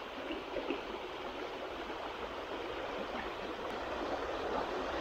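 Chalk-stream river water flowing steadily, an even rushing ripple that gets slightly louder towards the end.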